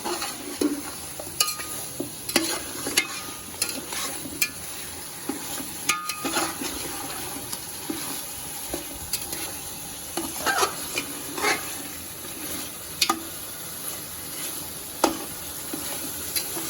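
Chicken pieces frying in oil with ground spices and garlic-ginger paste, sizzling steadily while a spatula stirs and scrapes the pot with irregular clicks and knocks.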